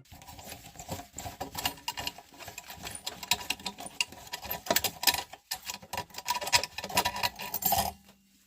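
Scroll saw cutting fretwork in a dry wood round, making a rapid, irregular rattling and clicking; it stops about eight seconds in.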